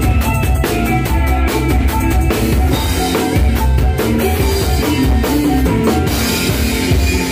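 Live campursari-dangdut band playing an instrumental passage, led by a drum kit with quick kick and snare strokes over pitched band instruments. A wash of cymbals comes in about six seconds in.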